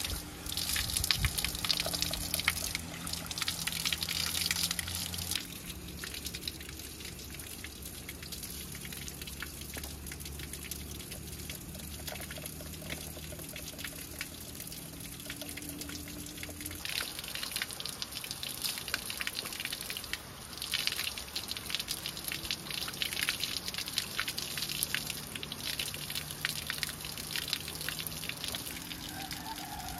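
Water running from an outdoor standpipe tap and splashing as raw chicken pieces are rinsed by hand in a metal pot. The splashing is louder for the first few seconds and again through much of the second half.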